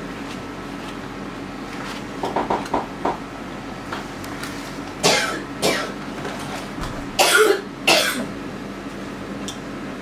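A person coughing several times from about five seconds in, loud sudden coughs over a steady low hum, with a few short soft sounds a couple of seconds earlier.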